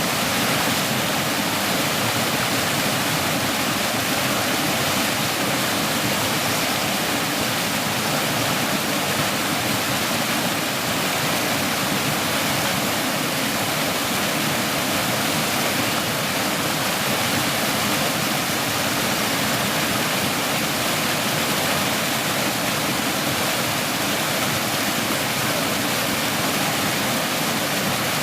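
Water of a small stream pouring over a little fall, a steady rushing splash that stays even throughout.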